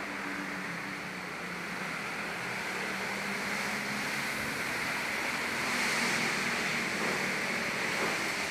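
Strong wind blowing: a steady rushing that swells about six seconds in, over a faint low hum.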